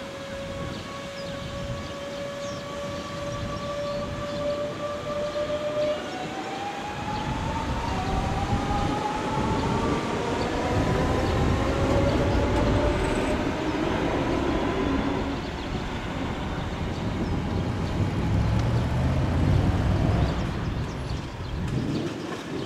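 Electric train pulling away, its traction drive whining in steady tones that then climb slowly in pitch as it accelerates, over growing wheel and running noise.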